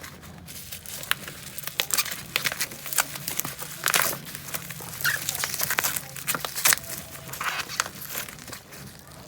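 Packaging being handled and opened: irregular crinkling and rustling of plastic and paper wrapping, with occasional sharper crackles, as a new dashcam is unboxed.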